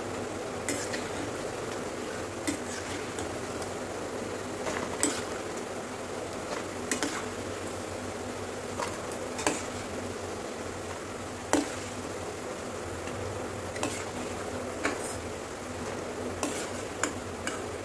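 Pakoras deep-frying in hot oil in a steel kadai, a steady sizzle, with about a dozen sharp clinks of a steel slotted spoon against the pan and serving dish as the crisp fritters are lifted out.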